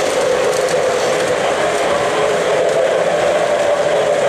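O-gauge model freight train cars rolling across a truss bridge: a steady rumble of wheels on the three-rail track with an even hum.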